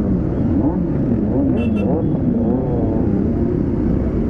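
Several motorcycle engines running together at low speed, with a deep steady rumble and rising-and-falling pitch as throttles are blipped. A brief crackle stands out about one and a half seconds in.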